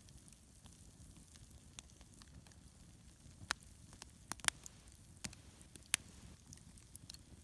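Wood campfire crackling: irregular sharp pops and snaps over a low, steady rustle of the flames, with the loudest pops about four and a half and six seconds in.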